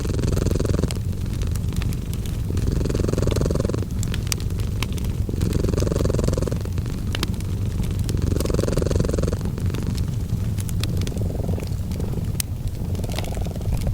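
Cat purring as a steady low rumble that swells about every two and a half seconds, with a fireplace crackling in short sharp pops throughout.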